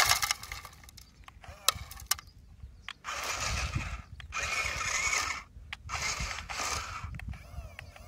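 Gravel spilling from the bucket of a toy RC wheel loader into a toy dump truck's bed at the start, with a few clicks after. Then the loader's small electric drive motors and gears whir in several short bursts, with gaps between, as it backs and turns on gravel.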